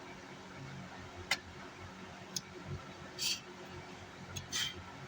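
Small handling noises on a repair bench: a sharp click about a second in, a fainter click, then two short scratchy rasps, over a low room hum.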